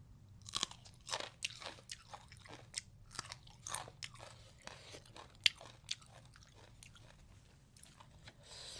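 Biting into and chewing a raw chilli pepper: a quick run of crisp crunches that thin out into fainter chewing after about six seconds.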